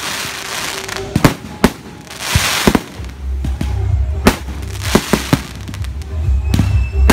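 Fireworks display: about nine sharp bangs of shells bursting overhead at uneven intervals, with stretches of hiss between them. A low rumble sets in about three seconds in.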